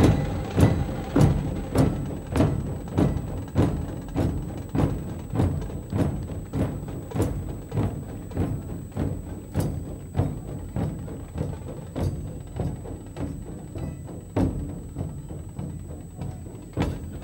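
A troupe of large Maharashtrian dhol drums, beaten with sticks in a steady, even beat of a little under two strokes a second. The level slowly fades through the passage.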